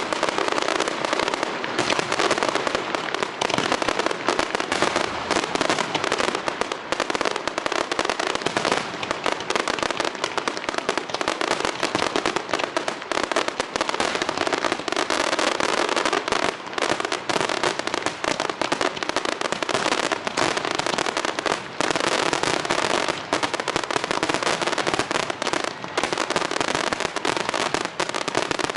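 Fireworks display going off in a dense, continuous barrage of rapid crackling reports and bangs, many per second, with no pause.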